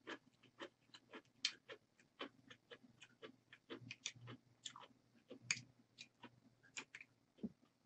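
Close-miked chewing of thick instant ramyeon noodles: faint, irregular wet mouth clicks and smacks, a few each second.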